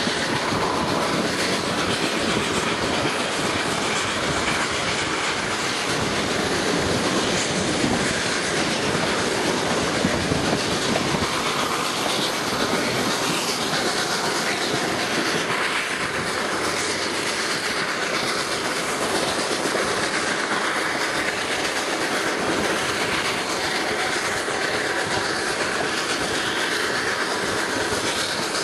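Reading & Northern excursion passenger coach rolling along the track, heard through an open window: steady wheel-and-rail noise of the moving train.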